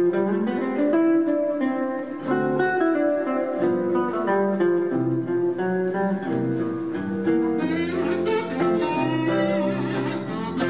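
Acoustic guitar picking a melodic solo over plucked string accompaniment. About eight seconds in, a buzzy, wavering kazoo melody comes in on top.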